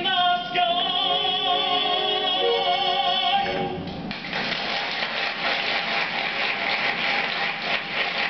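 A male voice holds a long final sung note with vibrato over musical accompaniment, cutting off about three and a half seconds in; then a theatre audience breaks into applause.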